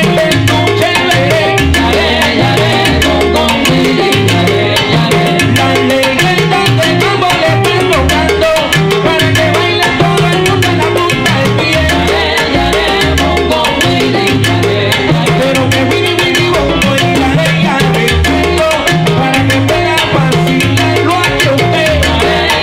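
A live salsa orchestra playing an up-tempo number, with a stepping bass line under dense Latin percussion.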